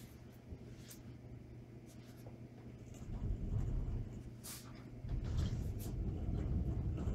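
Caster dollies rolling under a wooden base loaded with a pop-up truck camper as it is pushed across the shop floor. A low rumble starts about three seconds in and gets louder about five seconds in, with a few sharp clicks.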